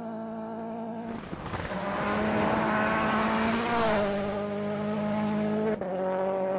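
Toyota Yaris AP4 rally car's engine held at high revs at speed on a gravel stage. A rush of tyre and gravel noise swells in the middle, and the engine pitch steps down about four seconds in.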